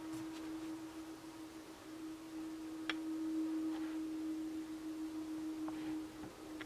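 A steady hum at a single low pitch, with a couple of light clicks as the paper pad is handled, about three seconds in and again near the end.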